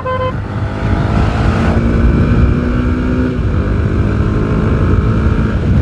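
Motorcycle engine running under way on a rough road, its note shifting slowly, over a heavy low rumble of wind on the microphone. A brief pitched beep right at the start.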